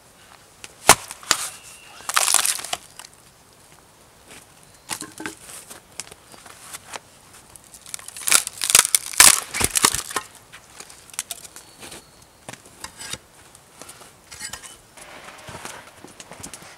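Hatchet splitting firewood on a chopping block: sharp knocks of the blade and wood striking, and short bursts of wood cracking apart, spread irregularly with the loudest run of cracking a little past halfway.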